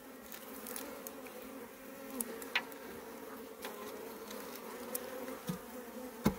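A honeybee colony buzzing in a steady hum over its opened hive while its frames are worked, with scattered light clicks and one sharp knock near the end.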